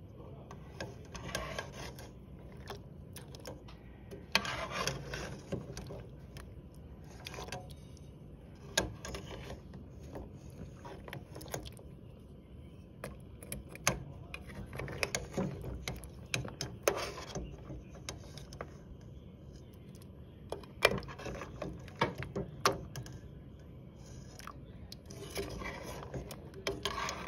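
A metal ladle stirring a pot of soup, with irregular clicks and knocks against the pot and stretches of scraping.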